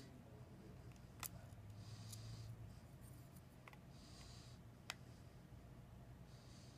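Near silence with three faint, sharp clicks spread over several seconds: small flex-cable connectors on an iPhone 6 logic board being pried off with a plastic opening tool.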